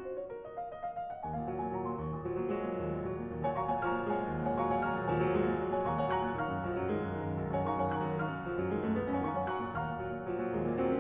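Instrumental music led by piano, with a fuller bass part coming in about a second in.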